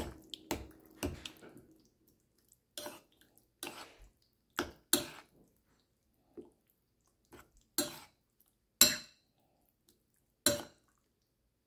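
Metal spoon clinking and scraping against a ceramic bowl as thick chicken rice porridge is stirred: about a dozen separate light clicks, irregularly spaced, with the loudest two near the end.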